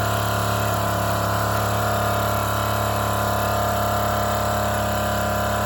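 Mamod SP5 model steam engine running flat out under full steam pressure: a steady, fast mechanical whir with no let-up.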